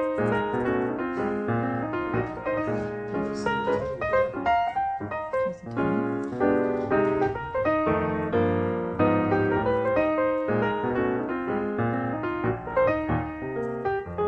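Background piano music, a quick run of notes at a steady lively pace.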